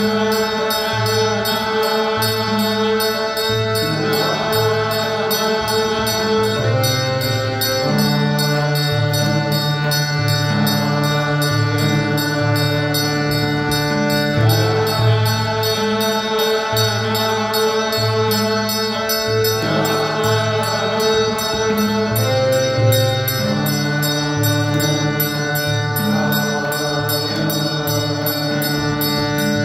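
Devotional arati hymn: voices singing over sustained harmonium chords, with a steady low rhythmic beat running underneath.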